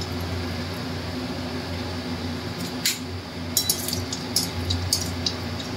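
Dried red chillies frying in hot oil in an aluminium karai, sizzling quietly over a steady low hum. From about halfway through, a metal spatula stirs them, with short sharp ticks against the pan.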